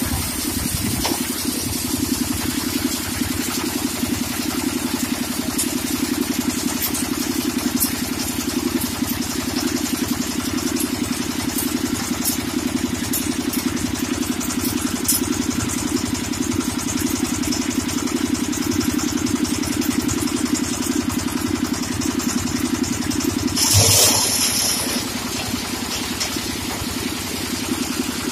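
Coal crusher and the engine driving it running steadily, with a regular throb. Near the end a brief, louder rush of noise cuts in for about a second.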